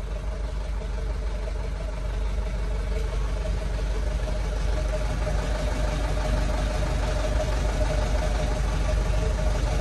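Truck engine idling steadily as it warms up, heard from inside the cab, growing slightly louder.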